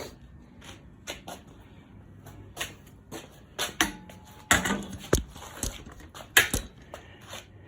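Irregular clicks and knocks of things being handled, with a few louder knocks past the middle.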